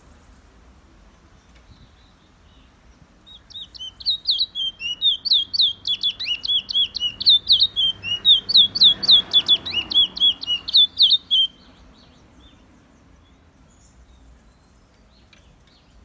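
Small black caged finch singing: a long run of rapid, repeated down-slurred whistled notes, about five a second, starting a few seconds in and stopping abruptly about two-thirds of the way through.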